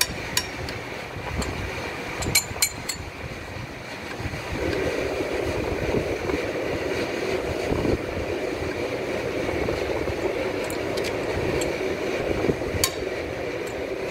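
A few sharp metallic clinks of a wrench and socket on crankshaft main-bearing bolts as they are turned tight. About four and a half seconds in, a steady rushing noise comes in and runs on.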